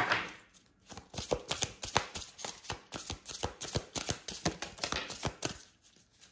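Oracle card deck being shuffled by hand: a quick run of crisp card clicks and flicks, several a second, after a brief swish of cards at the start, stopping shortly before the end.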